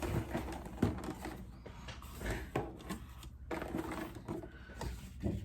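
Packaging being handled and opened: irregular rustling and crinkling with many small clicks and taps.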